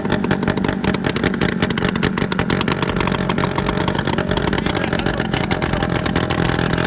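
Scooter engine running loud through a 'dholki' exhaust fitted in place of the stock silencer, a fast, even train of exhaust pulses.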